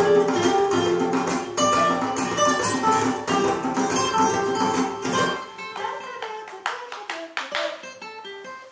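Acoustic guitar played with the fingers: full, busy chord-and-bass playing for about five seconds, then the bass notes stop and lighter, higher single notes carry on more quietly.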